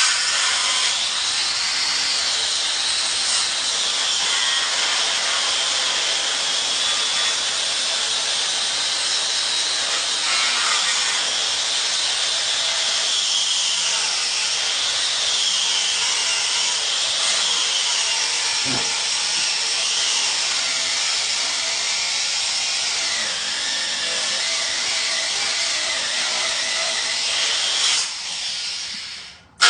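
A handheld power tool running steadily with a hiss, its high whine wavering up and down as the load changes. The sound drops near the end and then falls away.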